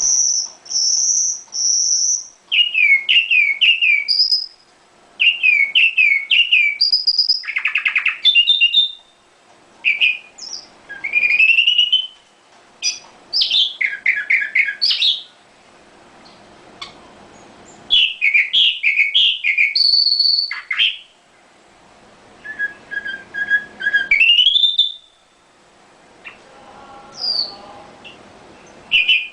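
Small songbirds singing a varied run of short phrases: clear whistles, quickly repeated chirps and rapid trills, each a second or two long with short pauses between.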